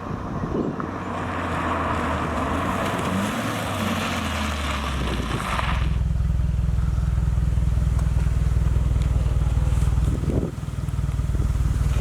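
Subaru WRX fitted with an XForce VAREX valved cat-back exhaust, driving. For about the first six seconds a rush of wind and road noise covers the engine, which climbs a little in pitch. Then a steady, loud low exhaust drone sets in, dipping briefly near the end.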